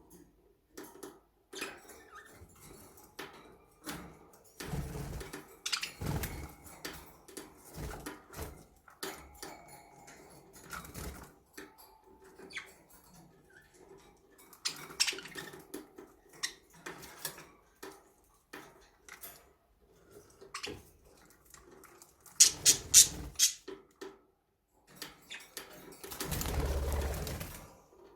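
Pet budgerigars: scattered pecking clicks and soft calls, with two louder rustling bursts in the last few seconds.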